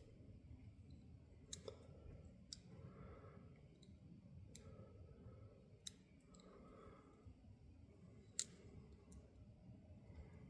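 Old Plumb 1/4-inch ratchet worked in its reversed direction, giving only a few faint, irregular clicks as the pawl catches now and then; the owner guesses the mechanism does not push the pawl far enough out of the way.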